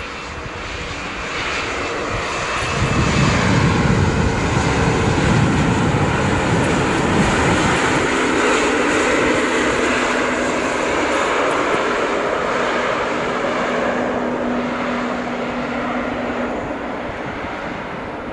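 Airbus A220-300's Pratt & Whitney PW1500G turbofan engines as the airliner passes close by on the ground. The engine noise swells to a peak with a deep rumble a few seconds in, then settles to a steady hum that slowly fades.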